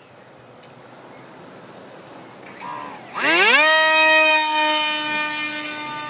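Electric motor and propeller of a foam SU-47 Berkut R/C park jet spooling up to full throttle about three seconds in, a fast-rising whine that then holds steady and high. The whine slowly fades and drops a little in pitch as the plane is hand-launched and flies away.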